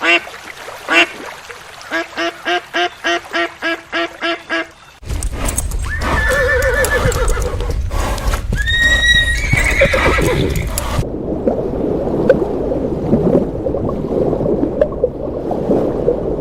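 Horse neighing and whinnying. A quick run of short, evenly spaced calls comes first, then after a sudden change about five seconds in, louder whinnies that fall in pitch over a rough, noisy background.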